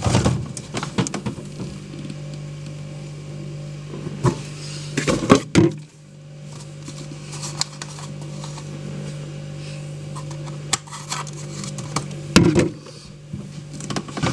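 A steady low hum with scattered clicks, knocks and clatter over it. The hum breaks off briefly a little past five seconds in, and there are louder bouts of knocking around five and twelve seconds in.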